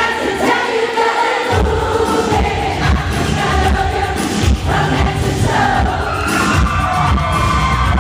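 Live freestyle pop music with singing, many voices together and the crowd mixed in; the bass and drum beat comes in about a second and a half in.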